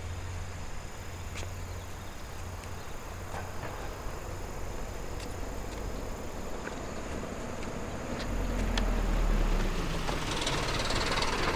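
KiHa 40 series diesel railcar's engine running with a steady low hum, growing louder about eight seconds in as the railcar comes closer. Insects chirp steadily in the background.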